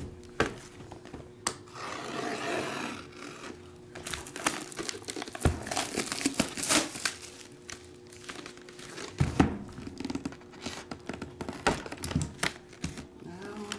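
Plastic shrink wrap being torn and crumpled off a sealed trading-card box, in quick crackles, with a couple of dull knocks as the box is handled.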